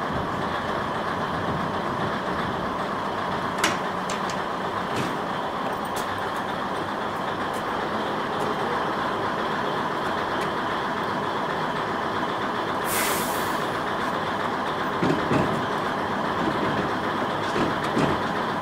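Diesel railcar standing with its engine idling steadily, with a few sharp clicks and knocks and a short hiss of compressed air released about thirteen seconds in.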